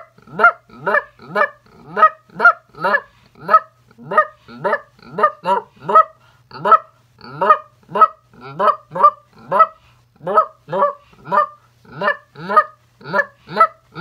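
A man calling Canada geese with his mouth and cupped hands, no call in use: an unbroken run of short goose-like honks, each rising in pitch, about two a second.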